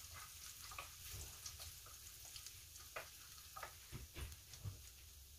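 Minced garlic frying in butter and oil in a wok: a faint, thin sizzle with scattered crackles. A few soft knocks come about four seconds in.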